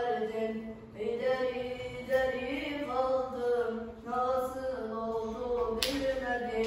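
A boy's voice singing or chanting a melody alone, without accompaniment, in long held notes broken into phrases. A sharp click sounds near the end.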